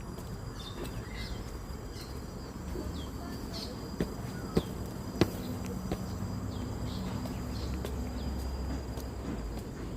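Forest insects droning steadily in a high thin tone, with a string of short falling chirps repeating through it. Three sharp clicks come close together about four to five seconds in, over a low rumble.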